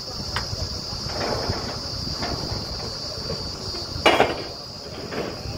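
Truck-mounted borewell drilling rig running with a low rumble, and sharp metal clanks as the crew works the drill pipe at the rig, the loudest about four seconds in. A steady high-pitched buzz runs underneath.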